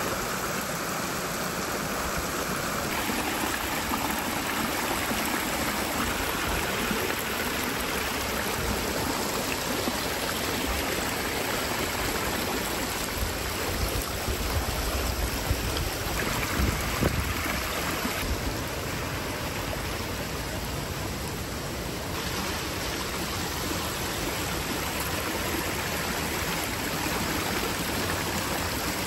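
Shallow stream running over the dirt and rocks of a forest campsite: a steady rush and trickle of water.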